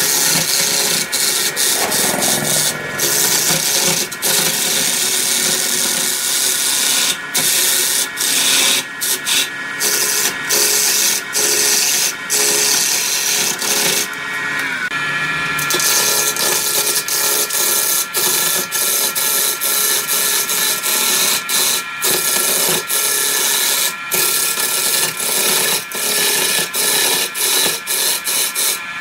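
Wood lathe turning a large cylindrical block of pale wood while a long gouge cuts grooves into it: a continuous hiss of cutting and flying shavings, broken by many short gaps. A steady high whine runs with it and shifts in pitch about fourteen seconds in.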